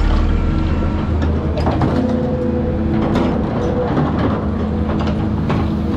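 Heavy excavator's diesel engine and hydraulics running steadily, with scattered clanks and crunches of sheet metal as its grapple works on a scrap car.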